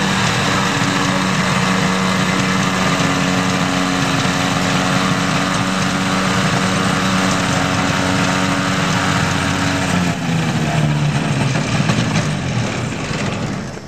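Small propeller engine of a homemade ultralight airplane running steadily as the plane taxis. About ten seconds in its note drops and wavers, and the sound falls away sharply at the very end.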